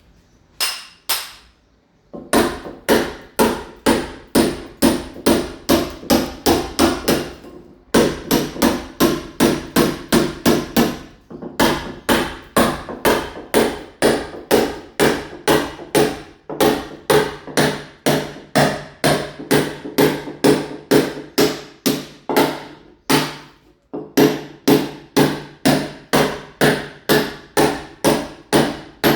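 Mason's hammer striking again and again, about two to three blows a second, each with a short metallic ring, as a wall is chipped and roughened to take ceramic tile. The hammering stops briefly a few times, the longest pause near the end.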